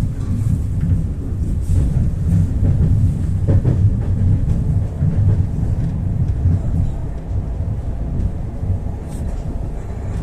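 Ivolga 4.0 electric train running at speed, heard from inside the passenger car: a steady low rumble of the wheels on the track.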